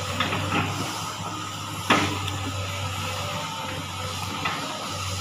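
SANY SY215 hydraulic excavator's diesel engine running steadily while its chopper bucket strikes and chops through a palm trunk, with one sharp crack about two seconds in and a few lighter knocks.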